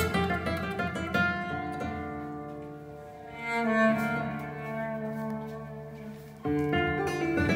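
Flamenco music played through SABA Green Cone full-range speakers in Bongo cabinets, driven by a 300B tube amplifier: guitar with long held string notes, and a sharp loud guitar entry about six and a half seconds in.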